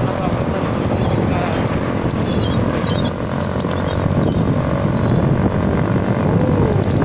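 Wind buffeting a phone's microphone as a bicycle is ridden, a steady dense rush. A high thin tone comes and goes four times over it, and faint clicks are scattered through.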